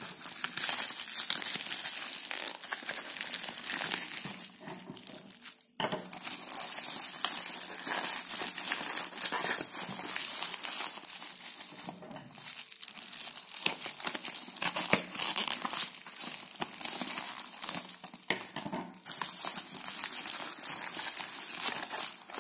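Plastic bubble wrap crinkling and rustling as hands unwrap a boxed puzzle cube, with many small crackles and a short break about six seconds in.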